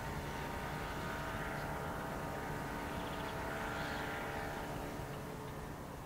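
Steady engine drone with a cluster of whining tones over a low rumble, swelling about four seconds in and easing off toward the end.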